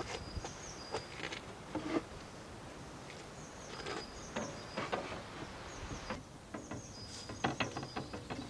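A small songbird singing short high whistled phrases several times, over scattered light clicks and knocks from hands working a wooden large-format bellows camera.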